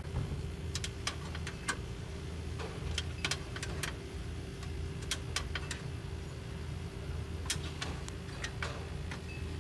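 Irregular sharp metallic clicks and taps of hand tools working at a bolt on the compressor's sheet-metal frame, over a steady low hum.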